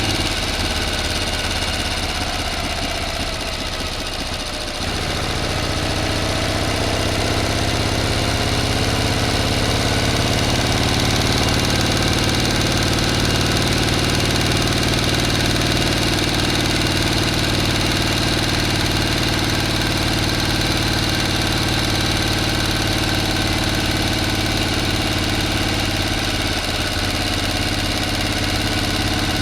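A motor running steadily. About five seconds in its note changes abruptly, rises slightly for a couple of seconds, then holds steady.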